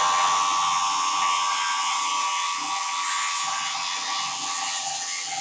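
Bridgeport milling head spinning a three-insert cutter at 2720 RPM, climb-milling a half-inch-deep roughing pass along a UHMW plastic rail: a steady high-pitched whir with hiss, easing slightly toward the end.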